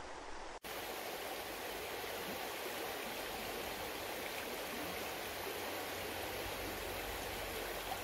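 Shallow stream running over rocks: a steady, even rush of flowing water that comes in abruptly about half a second in.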